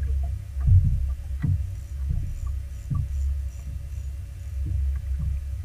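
Steady low rumble of wind and choppy water around a bass boat, broken by irregular dull thumps of waves knocking against the hull, with a faint steady hum underneath.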